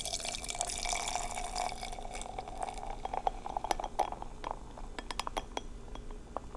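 Beer poured from a can into a glass, filling with a steady splashing pour that has a clear ringing tone. In the second half the pour gives way to a scatter of small ticks and splashes.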